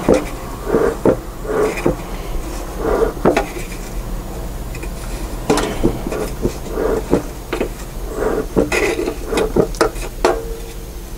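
Dry timothy hay being stuffed and pressed down into a lit bee smoker's metal firebox: crackly rustling of the hay with irregular sharp clicks as it is handled against the canister.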